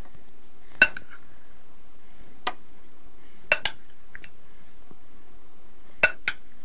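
A metal spoon clinking against glass dishes as strawberries are spooned from a glass bowl onto a glass plate: about six sharp, ringing clinks, two of them close together in pairs, over a steady faint hiss.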